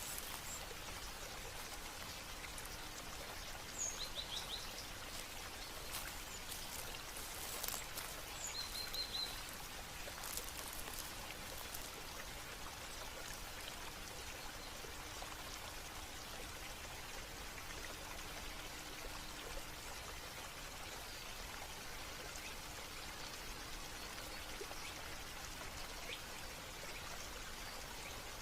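Steady running and trickling water, with a few louder splashes in the first dozen seconds. Short bird chirps come about 4 and 9 seconds in.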